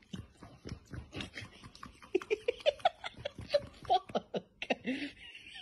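A person laughing in a quick run of short "ha"s, mostly from about two seconds in.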